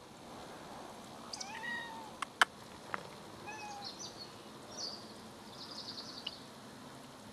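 A domestic cat meowing twice, about a second and a half in and again near halfway, with a few sharp clicks between the meows and some short high chirps afterwards.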